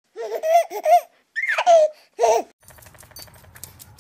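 A baby giggling in three short bursts, the middle one opening with a high squeal that slides down; then faint clicking noise.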